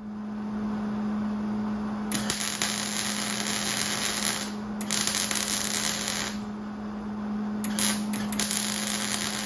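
Arc welding brackets onto a Jeep front axle: the arc crackles in three runs of a second or two each over a steady electrical hum.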